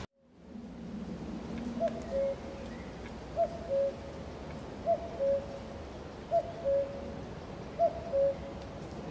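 A common cuckoo calling five times, each call a short higher note dropping to a longer lower one, repeating about every second and a half over a steady faint hiss.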